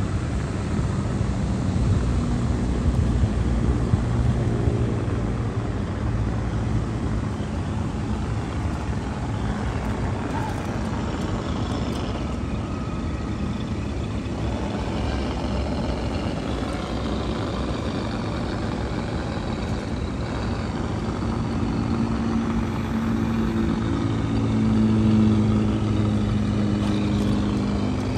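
1/10-scale RC crawler trucks running, the whine of their electric motors and geared drivetrains rising and falling as they crawl over loose dirt.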